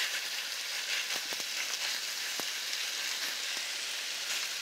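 Chopped raw chicken sizzling in hot oil in a steel frying pan, a steady hiss with a few small clicks in the first half.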